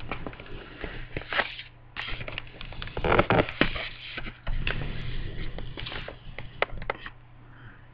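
Handling noise from a recording device's built-in microphone as the device is picked up and carried: a busy run of rubbing, scraping and sharp knocks, loudest about three seconds in, stopping about seven seconds in when it is set down.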